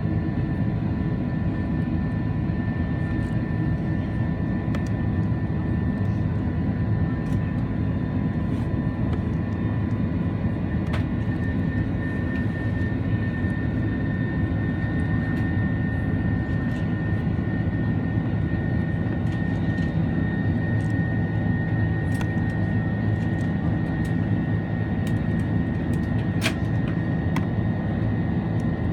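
Airbus A330-300 jet engines and airflow heard inside the passenger cabin: a steady, even roar with a few steady whining tones above it and occasional faint clicks.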